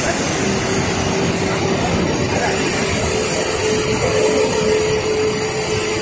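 Waterfall pouring, a steady dense rush of falling water with no breaks.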